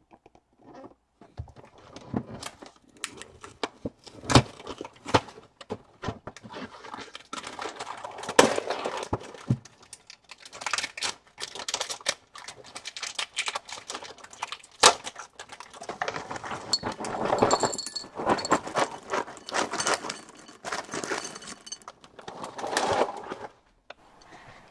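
Cereal box and its bag being handled and small hard cereal balls poured into a bowl: irregular rustling, rattling and clicks, busiest from about eight seconds in.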